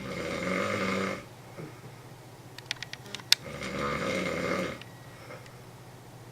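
A man snoring in his sleep: two long snores about three and a half seconds apart, each lasting over a second, with a few clicks between them.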